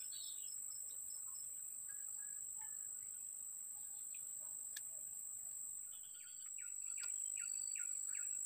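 Steady high-pitched insect drone, like crickets or cicadas, with a bird calling in a quick series of short chirps from about two-thirds of the way in.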